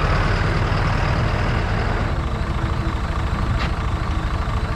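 A tractor engine running steadily just after being started, with a fast, even low firing beat. The upper noise eases slightly about two seconds in, and there is one short tick a little later.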